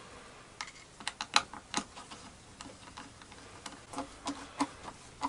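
Hand screwdriver fastening the belt guard on a homemade benchtop planer: a run of light, irregular clicks and taps in small clusters.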